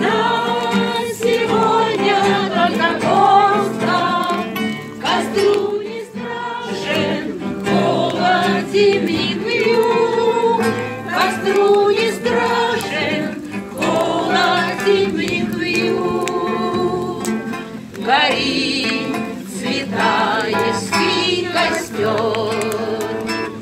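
A group of people singing a song together, accompanied by acoustic guitar.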